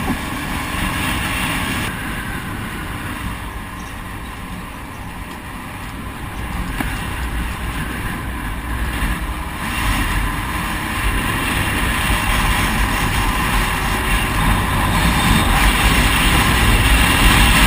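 Wind rushing over a helmet-mounted camera's microphone on a moving motorcycle, with the bike's engine running underneath. The rush dips a little a few seconds in, then grows steadily louder through the second half as the bike picks up speed.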